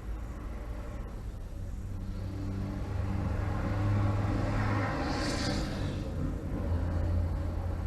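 A vehicle engine running with a low, steady rumble that swells louder through the middle, with a brief hiss about five seconds in.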